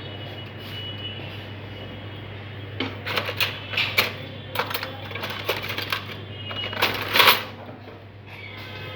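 Blade scraping the insulation off the end of a thin jumper wire: a run of short, irregular scrapes starting about three seconds in, the loudest near the end, over a steady low hum.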